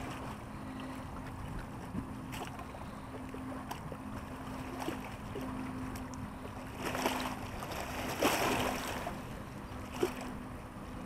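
Wind on the microphone and small waves lapping at a lakeshore wall, with a faint steady drone. A few small clicks and two short rustles about seven and eight seconds in come from a hook being worked out of a fish's mouth with a de-gorger.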